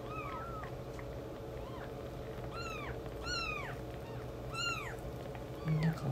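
Newborn kittens mewing repeatedly: short, high mews that rise then fall in pitch, several in a row, with two of the strongest in the middle. A brief low hum sounds near the end.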